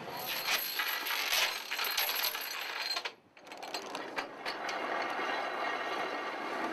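A boat's anchor chain and gear rattling and clinking as the anchor is reset, over a steady rushing noise. The sound drops out briefly about three seconds in.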